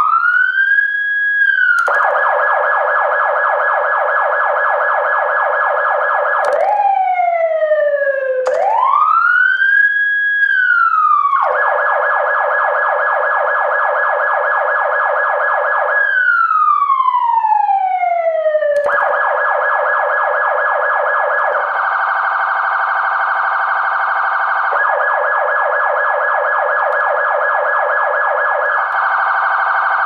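Emergency-vehicle siren switching between tones. Quick rising-and-falling sweeps alternate with a fast warble, and a long falling sweep comes about 16 seconds in. From about 19 seconds in, a faster, fuller warble takes over, breaking off briefly a few times.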